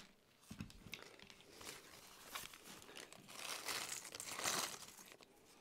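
Plastic bag and foam packing sheet crinkling as they are handled, while a bag of small plastic model figures is tipped out onto the foam; loudest a little past the middle.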